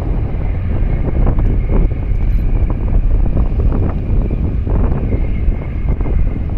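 Wind buffeting the microphone in strong gusts, over a steady low rumble, with a faint, steady high whine underneath.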